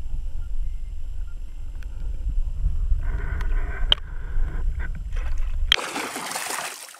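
Heavy muffled rumble of water rushing past an action camera's waterproof housing underwater while a hooked pike is pulled along, then, about six seconds in, a sudden loud hissing splash of water at the surface as the fish thrashes.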